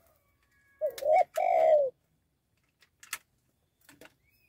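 A spotted dove (tekukur) cooing once about a second in: a short rise-and-fall note, then a longer falling one. A few faint sharp clicks follow, the clearest about three seconds in.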